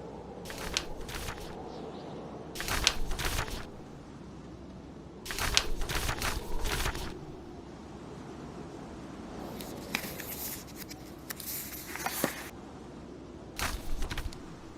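Paper pages of a book being turned, about five rustling page turns a few seconds apart, over a steady backdrop of blizzard wind and fireplace crackle.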